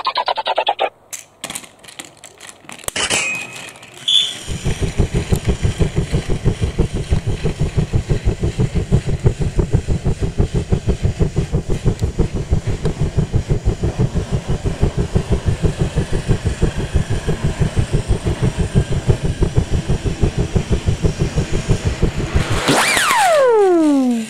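Battery-powered Plarail toy train running on plastic track, its motor and wheels making a steady, even clatter of about four to five beats a second. A few clicks come before it starts, and a loud falling whistle-like tone comes near the end.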